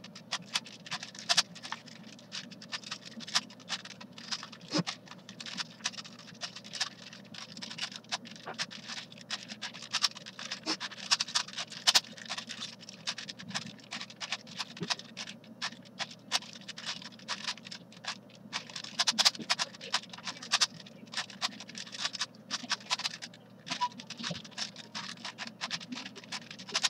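A plastic 5x5 puzzle cube turned by hand while it is being scrambled: rapid, irregular clicking and scraping of its layers.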